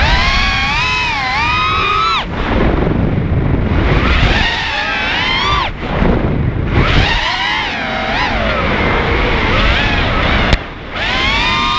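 Racing mini quad's brushless motors whining, the pitch climbing and dipping with the throttle over rushing air, dropping away suddenly three times before spooling back up.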